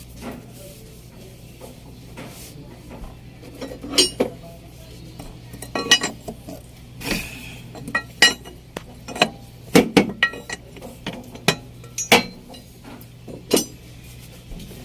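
Metal hand tools clinking and knocking against metal parts in irregular strikes as a solenoid valve is unbolted from a diesel engine, with a faint steady hum underneath.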